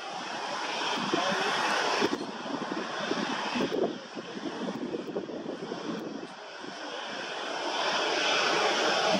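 Jet engines of a Jet2 Boeing 737 running as the airliner rolls along the runway, a steady roar that dips briefly in the middle and grows louder toward the end.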